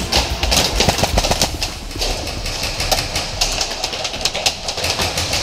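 Airsoft guns firing in rapid, irregular bursts, a dense rattle of clicks that thickens twice, with a steady low rumble underneath.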